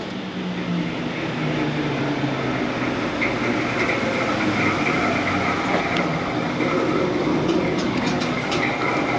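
Fan section of a PoolPak rooftop unit running with a failed bearing: a steady mechanical rumble with a rough, grinding clatter. A higher steady tone joins about three seconds in.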